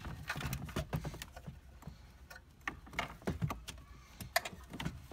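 A factory car radio's metal chassis being worked loose and slid out of the plastic dash opening: irregular clicks, knocks and scrapes of metal against plastic trim.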